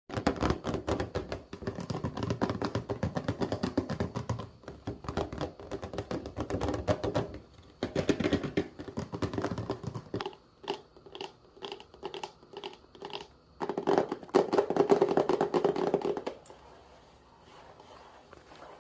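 Rapid tapping and clicking in dense runs, with a slower stretch of single separate taps in the middle, fading to quiet near the end.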